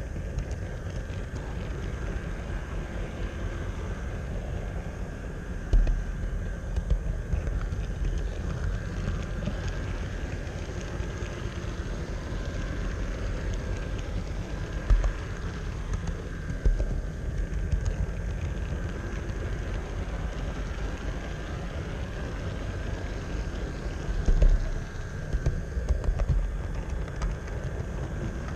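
HO-scale model train rolling along the track with an on-board camera: a steady low rumble from the wheels on the rails with a faint steady high hum over it. Several sharper knocks and jolts come through at intervals, the loudest about six seconds in and again near the end.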